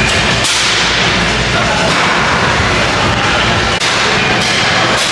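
Loud background music with a few sharp, hard-hitting beats.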